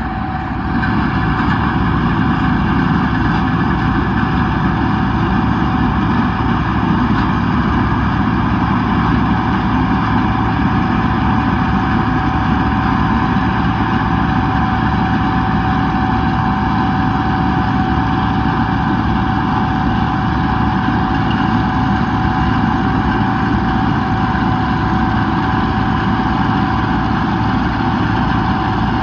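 Bizon Z056 combine harvester's six-cylinder diesel engine running steadily, with a steady high whine over the engine sound.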